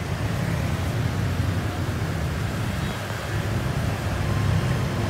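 Steady low rumble of road traffic passing on a busy city street.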